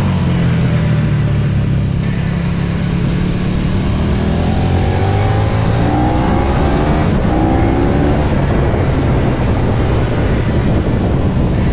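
KTM 1290 Super Duke R's V-twin engine running at circuit speed, heard from on board. The engine note climbs in several short rising pulls between about four and eight seconds in as the bike accelerates.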